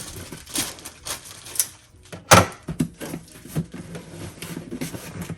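Rustling and crinkling of packaging and clothes being handled while unpacking a box, with a string of sharp clicks and one louder knock about two seconds in.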